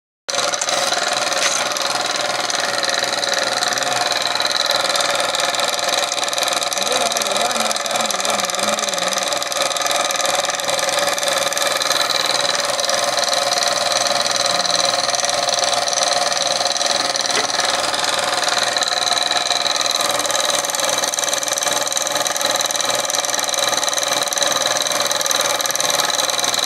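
An engine running steadily, a constant hum with several held tones that does not change.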